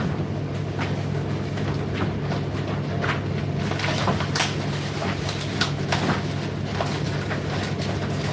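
Indesit IDC8T3 condenser tumble dryer running mid-cycle: a steady motor hum with irregular clicks and knocks as the load tumbles in the turning drum.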